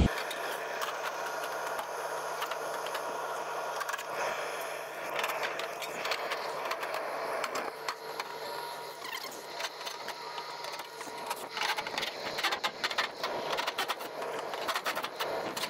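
Rooftop package unit with its gas furnace running, giving a steady mechanical hum with a few level tones. From about five seconds in, metal clicks, knocks and rattles come from the sheet-metal access panels being handled and fitted back on, growing busier in the second half.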